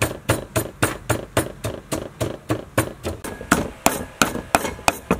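Wooden pestle pounding a red paste in a mortar, steady quick strokes at about four a second, with the last few strokes louder and a little more spaced out.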